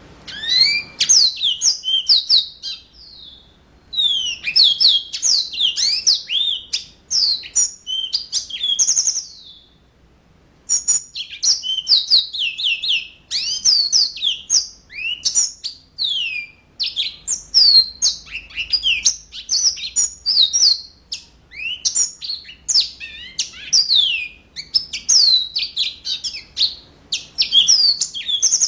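Yellow-fronted canary (mozambique) singing a fast, varied song of high sweeping chirps and trills, broken by two short pauses.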